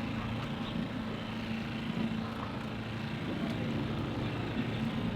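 An engine idling steadily: a low, even hum that does not rise or fall.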